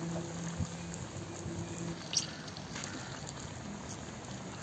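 Soft wet squelching as ripe tomatoes are crushed by hand and squeezed into a pan of pork curry simmering over a wood fire. A faint low steady hum runs under it for the first couple of seconds.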